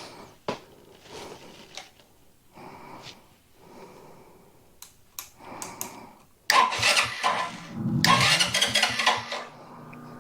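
Electric starter cranking a Wolf Striker 125 mini bike's small single-cylinder engine, with loud bursts about two-thirds of the way in and a pitch that rises as it spins up, then settles into a steady hum. Faint clicks and handling knocks come before it.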